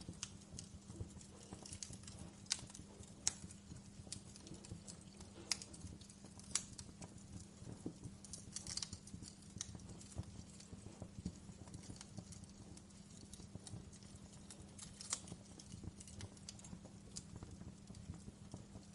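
Wood fire crackling in a fireplace: irregular sharp pops and snaps over a steady low rumble, with a few louder pops in the first seven seconds and again about fifteen seconds in.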